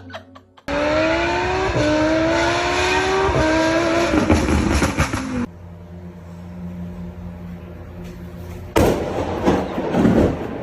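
A motor vehicle's engine accelerating hard, its pitch climbing three times in a row with a drop between climbs, then settling to a steady lower hum; a loud noisy burst comes near the end.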